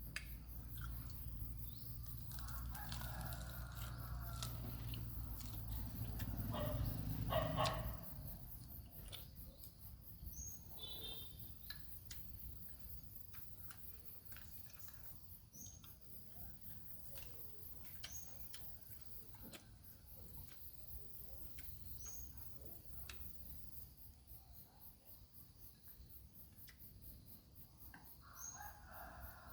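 Animal calls, once about three seconds in and again near the end, over a steady low hum that stops about eight seconds in, with short high chirps every few seconds and scattered light clicks.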